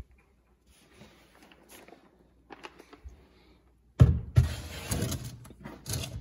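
A plastic litter tray full of cat litter being handled, with faint small clicks at first. About four seconds in come two sudden knocks, then about two seconds of the litter rattling and shifting in the tray.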